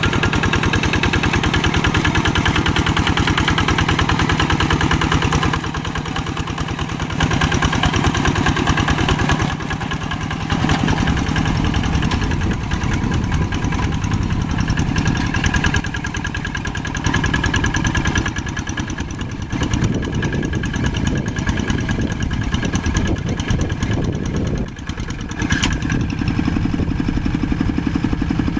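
Old tractor engine running with a steady firing beat, its loudness stepping down and back up several times.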